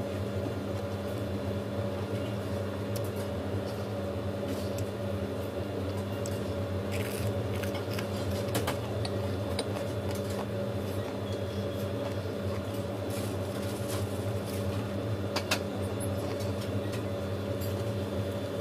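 Steady low mechanical hum, with scattered soft clicks and squishes as gloved fingers pick up rice and sauced fried chicken.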